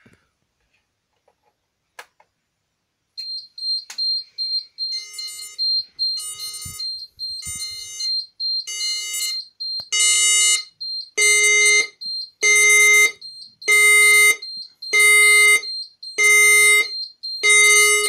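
A manual fire alarm call point is operated with a click, then the fire alarm system goes into alarm: a high, rapidly pulsing beep starts about three seconds in, and the voice-evacuation speaker joins with a repeating alert tone, about one pulse a second, which gets louder about halfway through.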